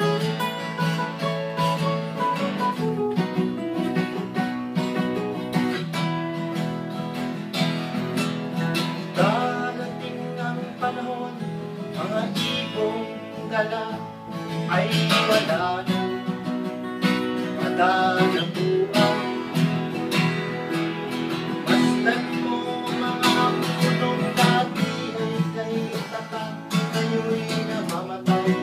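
Acoustic guitar strumming chords of a folk song, with a melody line weaving over the chords.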